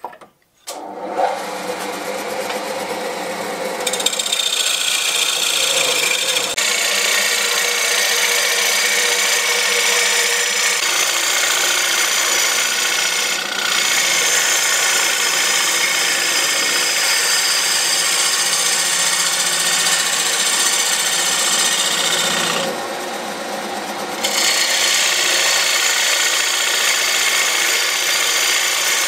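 Wood lathe spinning a bowl blank while a turning gouge cuts the outside: a steady hum under a loud, even hiss of wood being cut. The cutting noise sets in about four seconds in, breaks off for a moment in the middle, and stops for about a second and a half around three-quarters of the way through while the lathe keeps running.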